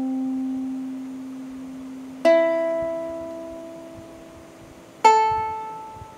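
Ukulele open strings plucked one at a time and left to ring as reference pitches for tuning by ear. The C string rings on from the previous pluck, the E string is plucked about two seconds in and the A string about five seconds in, each note a little higher and slowly dying away.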